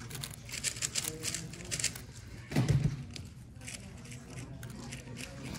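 A megaminx being turned fast in a speedsolve: quick runs of plastic clicks and clacks as the faces are snapped round, with one short, louder, deeper sound about halfway through.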